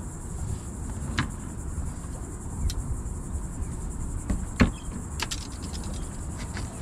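A steady high-pitched buzz over a low rumble of wind and water, with a few sharp knocks from handling on the boat, the loudest about four and a half seconds in.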